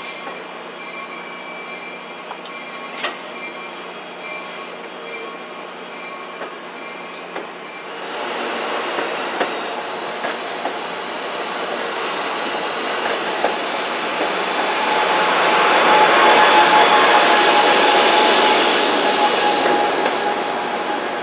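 Amtrak Pacific Surfliner bilevel passenger cars rolling past on the rails with scattered clicks at first. The rumble builds from about 8 s in, with steady high-pitched wheel squeal, and is loudest shortly before the end before easing off as the train clears.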